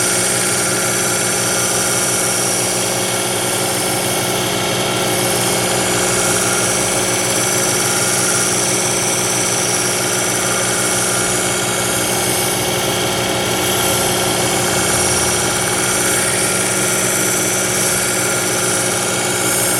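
Work Sharp Ken Onion Edition electric belt sharpener running steadily, its medium-grit abrasive belt grinding the steel edge of a kitchen knife with a high-pitched hiss that varies as the blade is drawn through in passes.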